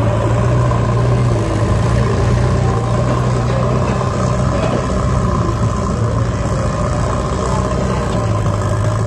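Diesel engine of a Powertrac Euro tractor running steadily, with a JCB backhoe loader's engine running alongside it.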